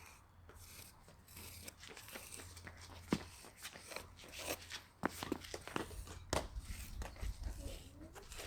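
Wooden shim scraping and smoothing wet elastomeric crack filler over driveway pavement: irregular scrapes with a few sharper taps.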